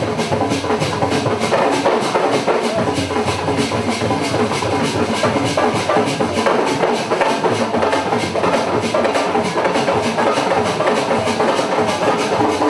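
Music with drums and percussion keeping a fast, steady beat.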